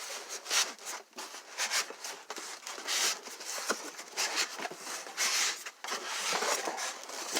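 Packaging rustling and crinkling as parts are pulled out of a soldering station's box, in a string of short, irregular crackles.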